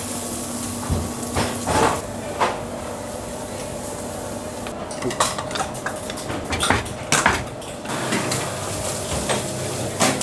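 Kitchen utensils and dishes clattering: a few knocks about two seconds in, then a quick run of clicks and clinks in the middle, over a steady faint hum.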